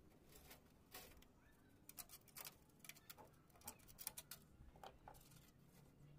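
Faint, irregular clicks and ticks of thin wire being twisted and handled against bamboo poles and a metal mesh grille.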